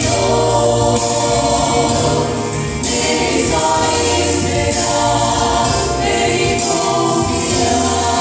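Women's vocal quartet singing a gospel song in harmony into microphones over a PA, with steady low instrumental notes underneath.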